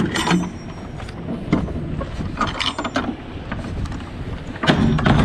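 Rear swing doors of a semi box trailer being closed and latched by hand: scattered metal clicks and clanks of the door and lock-rod hardware, with a louder clatter near the end.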